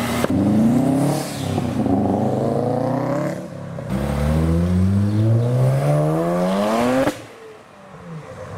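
A car engine revs up twice as it pulls away, then a Mazda RX-7's rotary engine accelerates hard for about three seconds, its pitch rising steadily before it cuts off suddenly.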